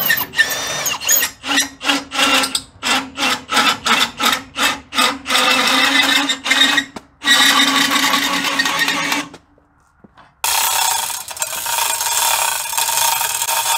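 Power drill with a socket turning the screw of a jack leg under the pickup crane, its trigger pulsed in short bursts about twice a second, then held for about two seconds as the leg is run down to brace the crane. After a second of near silence a steady rushing noise follows.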